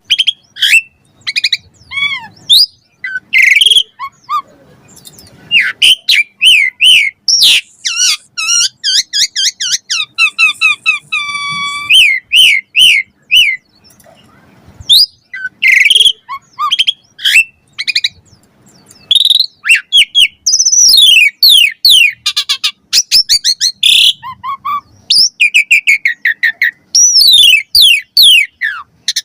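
Asian pied starling (jalak suren) singing a long, varied song in full voice: quick chirps, whistled notes sweeping up and down, and a buzzy note near the middle, in phrases separated by short pauses.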